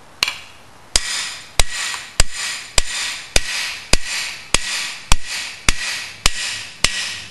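A hammer strikes a cam bearing installation tool, driving a bimetal cam bearing into its bore in a 428 Ford FE engine block. It gives one light tap, then a steady run of strikes a little under two a second, each with a brief metallic ring.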